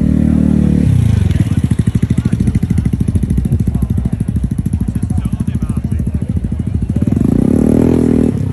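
Scooter engine running close by: revving steadily, dropping after about a second to a low, rapid, even beat, then revving up again near the end before falling back.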